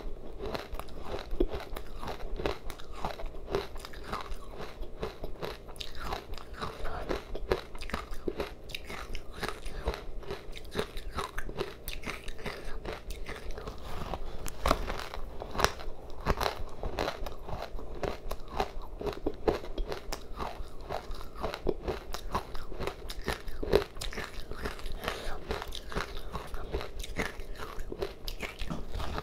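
Close-miked biting and chewing of shaved ice powdered with matcha: continuous, dense crunching and crackling.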